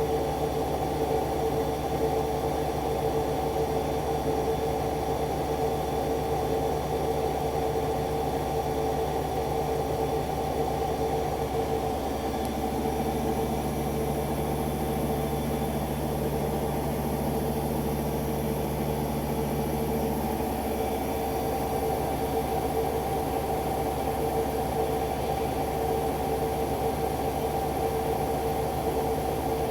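Arçelik washing machine spinning its drum at a steady speed during the intermediate spin of the colours cycle: a constant mechanical whir over a low hum. An extra lower tone comes in about twelve seconds in and stops some eight seconds later.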